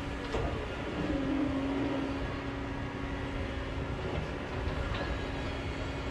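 Kobelco hydraulic excavator working as its bucket digs into the hillside soil: a steady engine drone with a held whine over it, and a couple of faint clicks.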